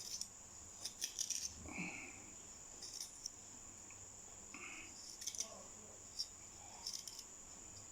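Faint, scattered clicks and taps of a knife cutting ginger root: a few in quick succession about a second in, then single ones spaced out through the rest.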